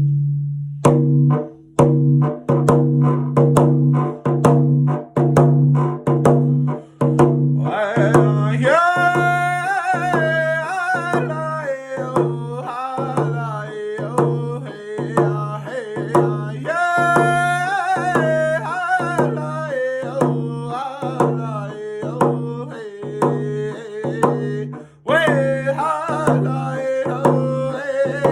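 Hand drum struck in a steady round dance beat, each stroke ringing with a low pitch. About eight seconds in, a young man's voice joins, singing a round dance song high over the drum; the voice drops out briefly near the end and then comes back in.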